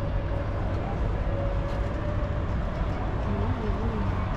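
Steady outdoor background noise, heaviest in the low end, as of a walk in a city; a short faint voice-like sound comes through about three and a half seconds in.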